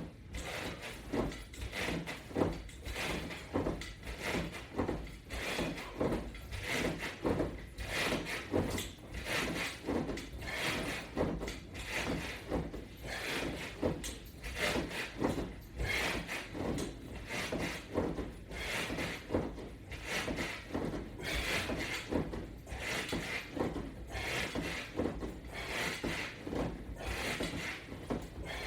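Repeated sit-up crunches against resistance band straps on a Latch Bar attachment, a short noisy sound with each rep, about one a second, in a steady rhythm.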